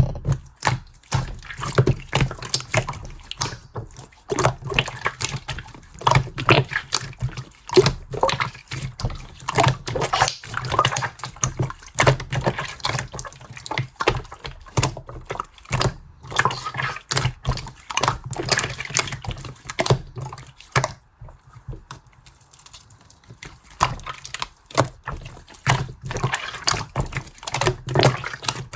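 Clear slime being squished and kneaded by hand: a continuous run of wet, sticky clicks and crackles, with a short lull about two-thirds of the way through.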